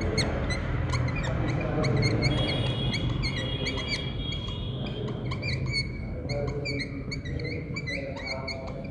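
Whiteboard marker squeaking against the board in many short chirps as words are written, with one longer held squeal a couple of seconds in. A steady low hum runs underneath.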